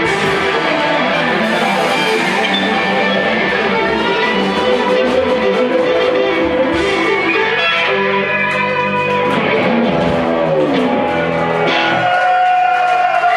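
Live rock band playing: several electric guitars over bass, drums and keyboard, with a long held note near the end.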